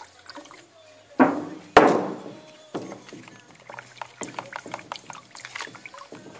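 Wooden stir stick mixing spray filler in a plastic mixing cup, tapping and scraping against the cup, with two louder thuds about a second in. The filler is being stirred with extra thinner because it was too thick.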